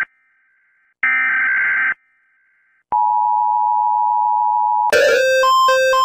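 US Emergency Alert System sounds: one more one-second burst of the SAME header's data tones, a short pause, then the steady two-tone EAS attention signal for about two seconds. About five seconds in, a different alarm takes over: quick beeps alternating between a low and a high pitch.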